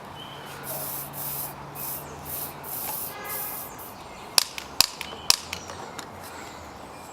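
Aerosol spray can squirted in about five short hissing bursts, the usual way a combustion potato cannon's chamber is charged with propellant. About a second and a half later come several sharp clicks.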